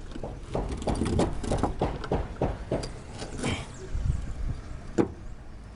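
Footsteps in sandals on corrugated fibre-cement roof sheets: irregular hollow knocks and scuffs as he steps along the roof, with one sharper knock about five seconds in.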